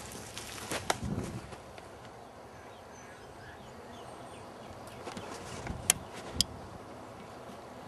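Faint outdoor background with a brief crunch and scuffle about a second in, then two sharp cracks about half a second apart.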